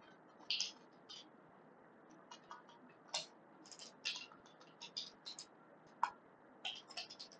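Computer keyboard being typed on: quiet, irregular runs of short key clicks, several a second at times, with brief pauses between bursts.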